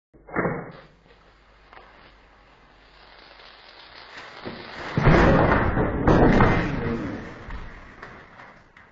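A sharp thump, then a rushing noise that builds into a loud, explosion-like blast about five seconds in and dies away over the next couple of seconds.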